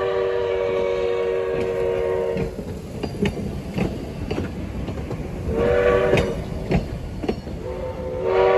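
A train's air horn sounds a chord of several notes: a long blast that ends about two and a half seconds in, a short blast around six seconds, and another blast starting near the end. Between the blasts, the wheels of passing passenger cars click over the rail joints.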